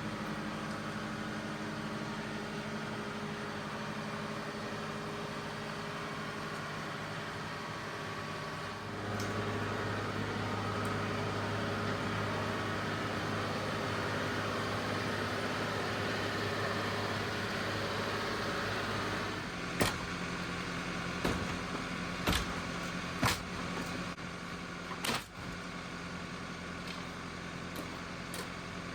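An engine running steadily. About nine seconds in it rises to a heavier, louder drone for about ten seconds, then settles back, and five or six sharp knocks follow.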